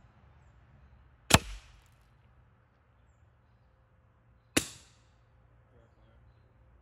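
Two sharp shots from a .25 calibre Hatsan Invader Auto semi-automatic PCP air rifle, about three seconds apart, each with a short fading tail.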